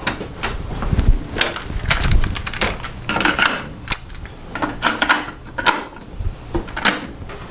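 A run of plastic clicks and knocks as cassettes are handled and loaded into the two decks of a Panasonic RS-361 dual cassette deck.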